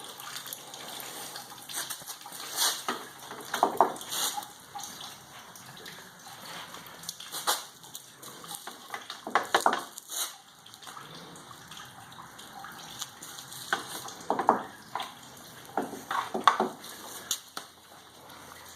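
Wet paper-and-sawdust pulp being handled and pressed into briquette pans: irregular wet scraping and squelching with water sounds.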